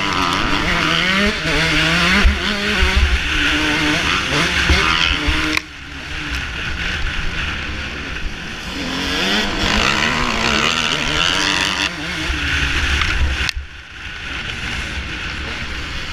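Motocross bike engine heard from the rider's own machine, revving up and down as the throttle opens and closes through the gears. The throttle is chopped sharply twice, about six and fourteen seconds in, before it picks up again. Wind noise sits on the microphone throughout.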